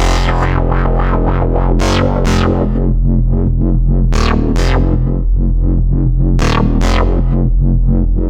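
ASM Hydrasynth digital wavetable synthesizer playing its Doppler Bass factory preset: a deep sustained bass under rapid, even rhythmic pulses. Three pairs of bright swelling accents come at regular intervals of a little over two seconds.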